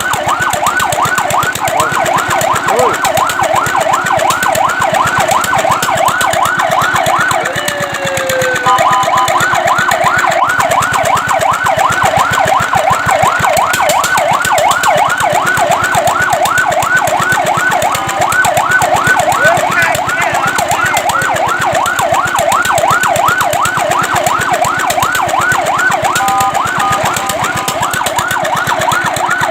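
Fire truck siren sounding a fast yelp, a rapid run of rising sweeps several times a second. Twice it breaks briefly: once with a falling glide into held steady tones, and once with held steady tones, before the yelp resumes.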